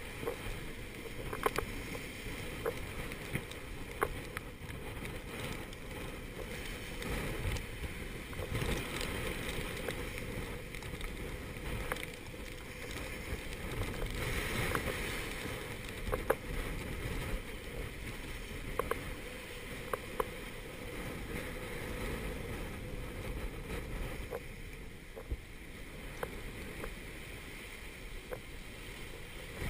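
Gale-force wind buffeting the microphone and breaking seas rushing past the hull of a Contessa 32 sailboat running dead downwind in a force 7 gale, surging and easing with the waves. Scattered sharp clicks and knocks cut through now and then.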